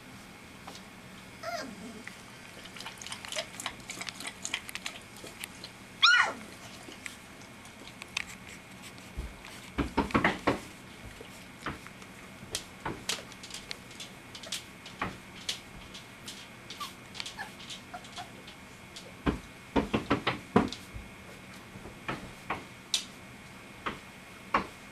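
Three-week-old golden retriever puppies whimpering and squealing as they play. One sharp squeal about six seconds in falls steeply in pitch. Scattered clicks and taps run throughout.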